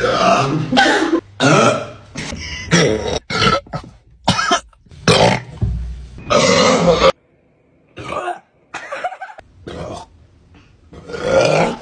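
A person burping over and over after chugging carbonated Sprite, a rapid string of loud belches with short gaps. A short pause a little past halfway is followed by softer burps, then louder ones again near the end.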